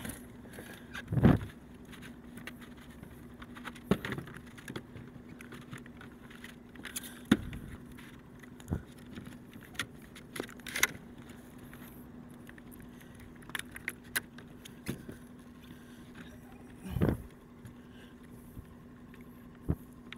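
Handling a freshly caught halibut and a plastic fish-measuring board on a sit-on-top kayak: irregular knocks, bumps and light clinks of gear on the hull. The louder thumps come about a second in, around seven seconds and around seventeen seconds.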